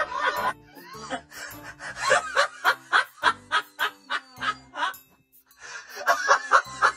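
Laughter in quick repeated bursts, with music under it.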